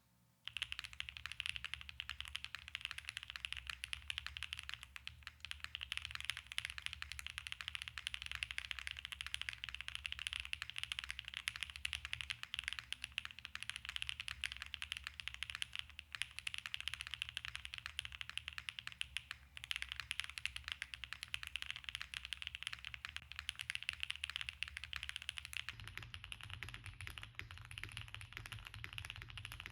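Fast, continuous typing on a QK65 V1 gasket-mounted custom mechanical keyboard with Gateron Smoothie switches, a POM plate, case and plate foam, and GMK Slasher keycaps. It begins about half a second in. About four seconds from the end the sound changes as the recording switches from a dynamic microphone to an iPhone microphone, losing its highest treble and gaining low end.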